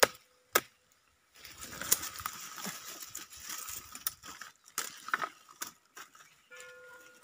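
A knife cutting woody vine stems: a handful of sharp chops and snaps, with rustling of dry leaves and twigs in between.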